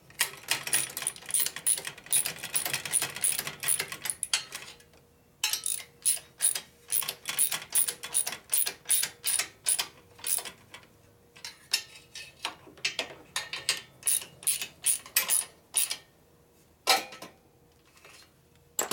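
Hand ratchet clicking in quick runs with short pauses, drawing up the exhaust pipe's flange nuts at the cylinder head a little at a time.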